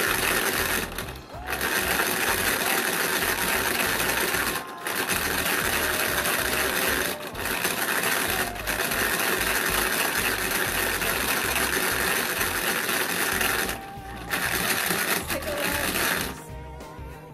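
Crayola Paint Maker's hand-cranked plastic mixer whirring and rattling as the crank is turned fast to shake the paint pot. It stops briefly about five times and starts again at once.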